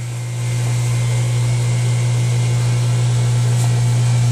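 Chamber vacuum packaging machine's vacuum pump running with a steady low hum as it draws down the chamber during the vacuum stage of the cycle, growing a little louder in the first second.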